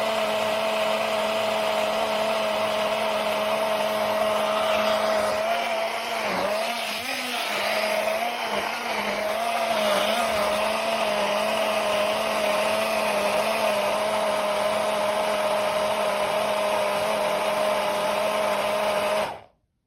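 MIAOKE portable USB-rechargeable mini blender's motor running steadily with a high whine. Its pitch wavers for a few seconds about six seconds in, and it cuts off abruptly just before the end.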